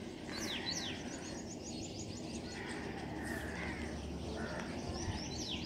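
Small birds chirping: quick high descending chirps, a fast run of short high notes about a second in, and more descending chirps near the end, over a faint steady background.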